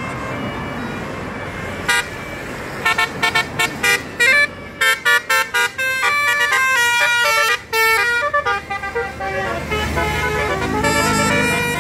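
Indonesian bus 'telolet' multi-tone musical horn playing a quick tune of short toots at changing pitches, then longer held notes near the end. The horn starts about two seconds in, after steady vehicle noise.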